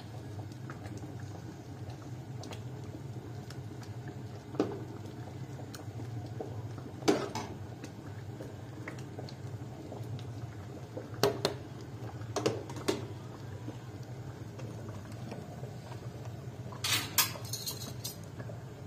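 Kitchen utensils clinking against pots and dishes, a handful of sharp knocks spread out and a quick run of them near the end, over a steady low hum.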